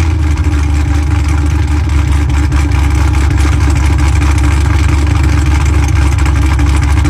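Yenko's V8 idling through its exhaust with a loud, steady, deep note.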